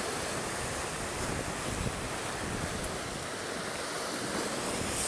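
Sea waves breaking and washing over shoreline rocks, with wind buffeting the microphone in irregular low gusts.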